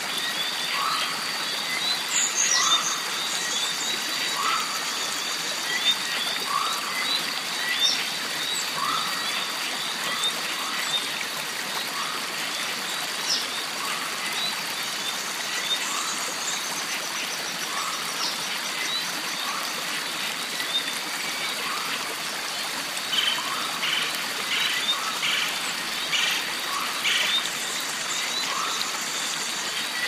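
Jungle mountain stream ambience: running water with a constant high insect-like drone over it, an animal's short call repeating about once a second, and scattered bird chirps that thicken a little past the middle.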